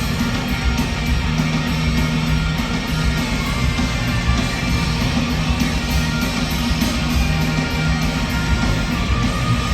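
Celtic punk band playing loud live rock, distorted electric guitars and drums without singing. The mix is muddy: the guitars blur into one wall of noise and the drums come through as a dull thump.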